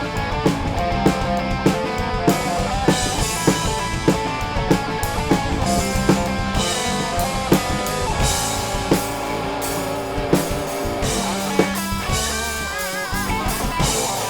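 Instrumental rock music: electric guitar playing sustained, bending lead notes over a steady drum kit beat.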